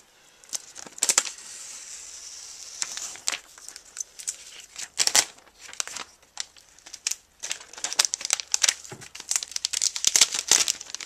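Thin clear plastic protective film being peeled off an iPad and handled, crinkling and crackling irregularly, getting denser near the end.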